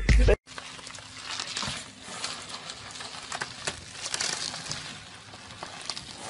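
A split second of loud music that cuts off abruptly, then bubble wrap crinkling and crackling with scattered small clicks as a chihuahua wriggles through a tube of it.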